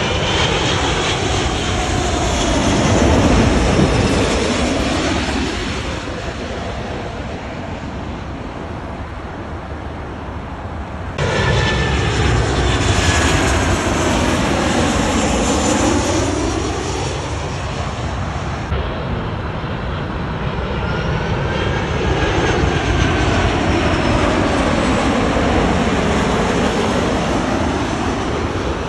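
Jet airliners passing low overhead on landing approach, one after another: first an Airbus A380, then a Boeing 737, then a four-engine jet. Their engine noise rises and falls with a swirling, phasing quality as each passes over, and the sound changes abruptly twice, about 11 and 19 seconds in, where one clip cuts to the next.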